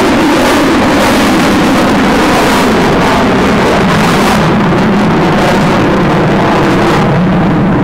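Eurofighter Typhoon's twin Eurojet EJ200 turbofans running at high power during a low, gear-down display manoeuvre, a loud steady jet roar. The hiss in the roar falls away about four seconds in as the jet pitches away.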